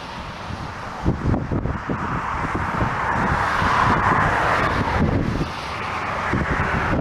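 Gusting wind buffeting the microphone over a steady rushing noise that swells about four seconds in.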